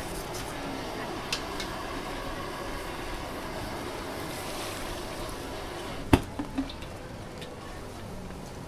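Steady noise of a gas-fired wok burner and hot oil sizzling as pork belly deep-fries in the wok. About six seconds in there is a sharp knock, followed by two lighter ones.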